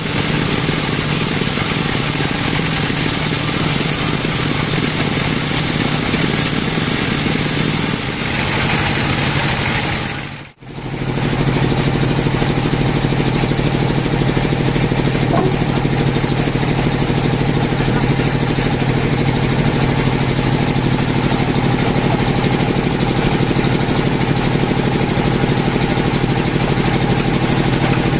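Band sawmill running steadily with a low hum. It drops out for a moment about ten seconds in, then comes straight back.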